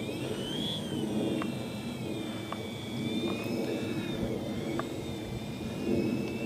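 Twin motors and propellers of a radio-controlled scale Dornier Do.28 Skyservant model taxiing on grass, a high whine whose pitch rises and falls a little as the throttle is worked, over a low rumble.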